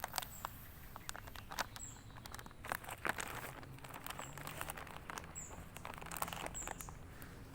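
Flameless ration heater reacting in its bag, with irregular soft crackles and pops as the water inside heats to a boil.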